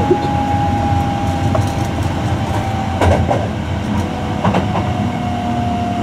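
Hankyu new 1000 series electric train running, heard from inside the car: the hum of its Hitachi permanent-magnet traction motors falls slowly in pitch as the train slows, over a steady wheel-on-rail rumble. The wheels click over rail joints a couple of times near the middle.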